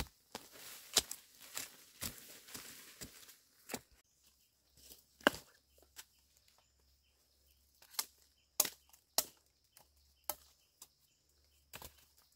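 Machete chopping into soil and roots to dig out a bamboo shoot: irregular hard strikes, quick and mixed with rustling dry leaves in the first few seconds, then single blows spaced a second or so apart.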